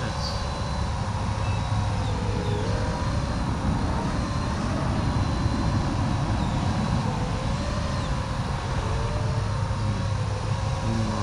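FPV drone motors whining, the pitch wavering up and down with the throttle, over a heavy low rush of wind.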